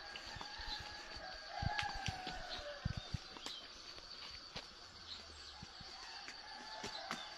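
Rooster crowing twice, about two seconds in and again near the end, over a steady high-pitched drone.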